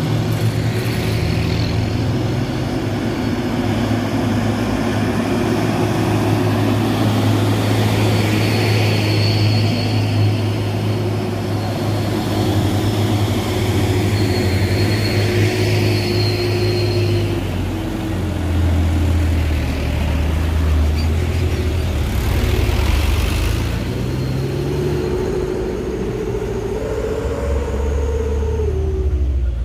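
Heavy diesel truck engine running with a low, steady drone on a steep climb. In the last ten seconds the engine note rises and falls as it is revved.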